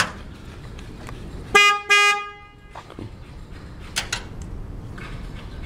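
Horn of a Taylor Dunn MX600 electric shop cart giving two short toots back to back, about a second and a half in. Each toot is a steady, single-pitched electric horn tone.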